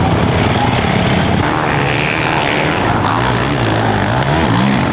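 Motocross bike engines running, with one engine's pitch rising and falling as it revs near the end.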